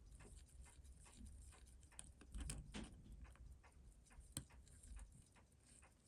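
Faint, irregular small clicks and taps of metal tools handling tiny watch parts, with a sharper click about four seconds in, over a low room hum.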